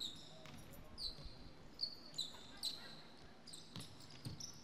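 Basketball shoes squeaking on the hardwood court as players move, a short high chirp every second or so. Two ball bounces thud near the end.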